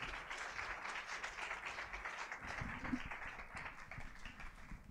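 A congregation applauding, a steady patter of many hands clapping that slowly dies away near the end.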